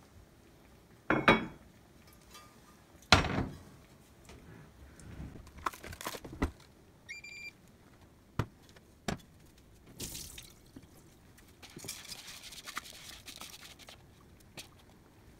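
Kitchen handling on a glass induction cooktop: two loud thuds as heavy pots are set down, scattered clicks, and a short electronic beep from the cooktop's touch controls about seven seconds in. Near the end, rinsed rice and water pour from a perforated scoop into a Staub cast-iron cocotte.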